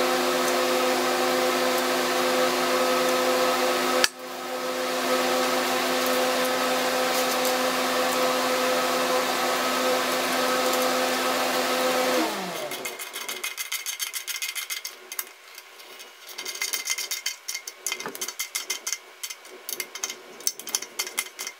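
An electric motor runs with a steady hum, with one sharp click about four seconds in, then spins down with a falling pitch and stops after about twelve seconds. After it come light, irregular metallic clicks and rattles of hand tools being worked.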